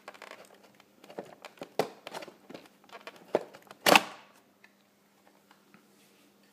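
Handling noise: rustling, crinkling and scattered clicks as a part for a Roomba 780 mop modification is picked up and fitted, with a sharp knock about four seconds in, then quiet.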